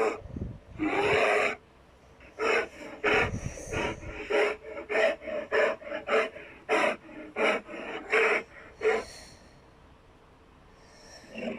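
Custom Godzilla monster sound effects: a short roar, then a rapid run of short huffing snorts, two or three a second, followed by a quiet pause before another roar starts at the end.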